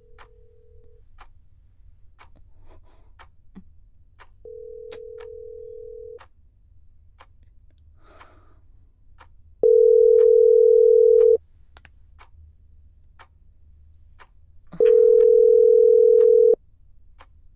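Telephone ringback tone: a single steady tone ringing for under two seconds about every five seconds, four rings, the last two much louder, as a call rings out unanswered. A clock ticks faintly and steadily underneath.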